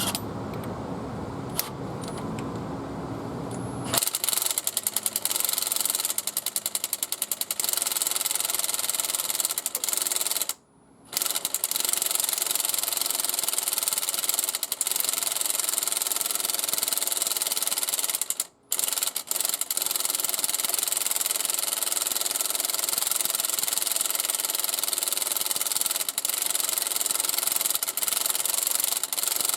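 A Neiko 20-volt 1/2-inch cordless impact wrench hammering on the forcing screw of a crank pulley puller, pulling the pulley off. It starts about four seconds in and runs on with two short pauses.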